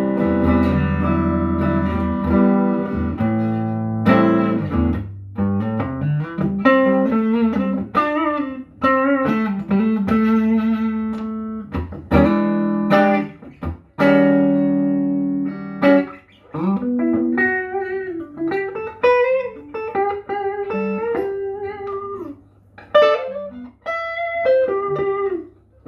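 Westminster SG electric guitar played through an amplifier: held, ringing chords at first, then single-note lead lines with string bends and vibrato, broken by a few brief pauses.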